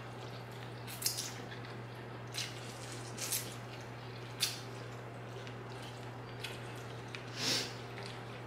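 Pho rice noodles being slurped from bowls: about five short wet slurps spread through, over a steady low hum.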